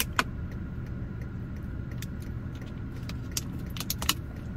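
Steady low rumble inside a running car, with a few light clicks and taps scattered through it.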